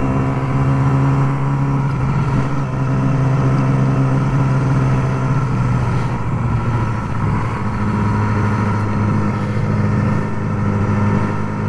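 Motorcycle engine running under way at a steady pace, heard over low wind rumble; the engine note changes pitch about seven seconds in.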